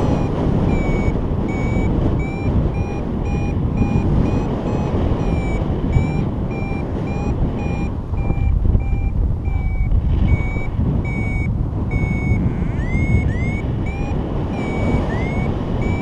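Paragliding variometer beeping in a regular series, about two short beeps a second, with a few quick rising chirps about three-quarters of the way through; beeping like this is the vario's climb signal. Loud wind rush on the microphone runs underneath.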